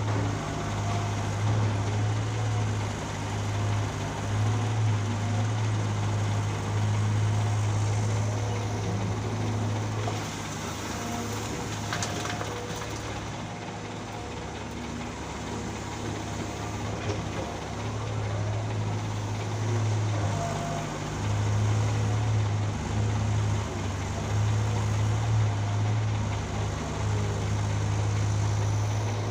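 Heavy diesel engine of construction machinery running, its low hum rising and easing in level as the machine works, quieter for several seconds around the middle. A single sharp click about twelve seconds in.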